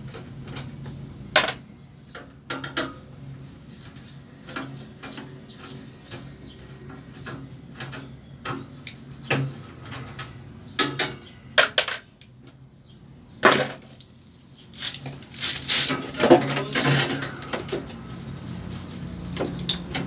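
Scattered clicks, knocks and clatter of a window air conditioner's parts being handled while it is taken apart for cleaning, with a few longer scraping sounds in the last few seconds over a steady low hum.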